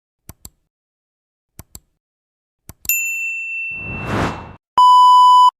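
Edited intro sound effects: a few soft clicks, then a bright ding that rings on for about a second, a whoosh, and near the end a loud steady electronic beep lasting under a second.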